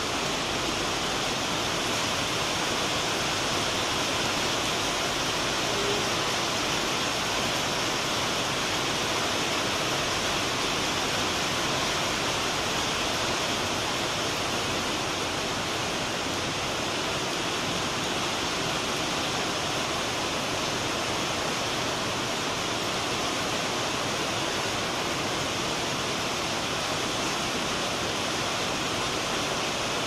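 Rain falling steadily, a continuous even hiss with no breaks.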